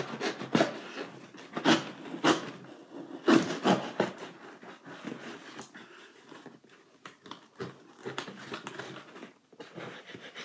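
Knife slicing and scraping through packing tape on a cardboard box: several sharp, scratchy strokes in the first four seconds, then softer scraping and rustling of tape and cardboard.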